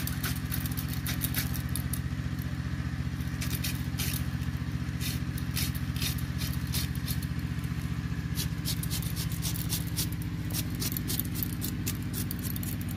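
A blade slicing through cabbage, shredding it into thin strips: a run of crisp, irregular cutting clicks. Under it, a steady low motor-like hum runs throughout.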